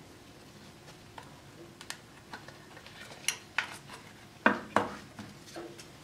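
Light metallic clicks and clinks from a solid copper Zippo lighter with a black-plated steel insert being lifted out of its presentation box and handled, with two louder clicks close together about three-quarters of the way through.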